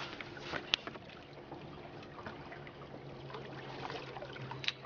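River water lapping and trickling against an aluminium boat's hull, over a low steady hum, with two sharp clicks, one under a second in and one near the end.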